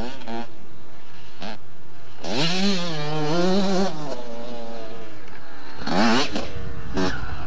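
Motocross bike engine revving up and easing off several times as the rider works the throttle, with a sharp rev about six seconds in as the bike goes over a jump.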